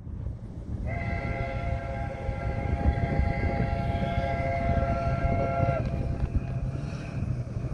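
Distant locomotive air horn sounding one long blast of about five seconds, several notes held together as a chord, starting about a second in. A steady low rumble runs underneath.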